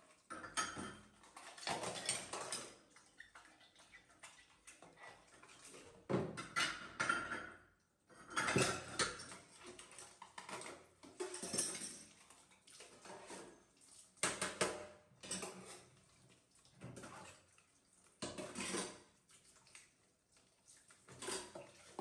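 Dishes being washed by hand in a stainless steel sink: irregular clinking and clattering of plates and bowls, with running tap water splashing over them.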